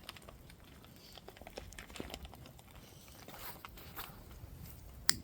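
Faint, irregular crackles and ticks, with one sharper click about five seconds in.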